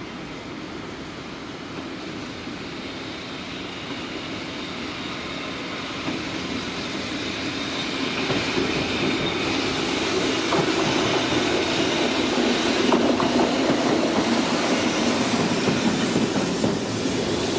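Electric freight train approaching and passing, its rumble growing louder over about ten seconds. Wheels clack now and then over rail joints, with a faint high wheel squeal.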